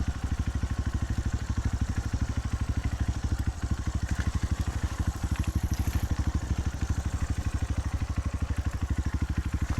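Motorcycle engine running at low revs, a steady rapid pulse of about a dozen beats a second.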